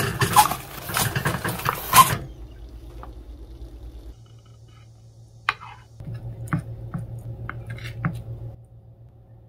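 Water boiling hard under a stainless steamer basket, loud bubbling for about two seconds, then quieter. Later, a few sharp taps as a knife cuts through steamed sundae (Korean blood sausage) onto a wooden cutting board.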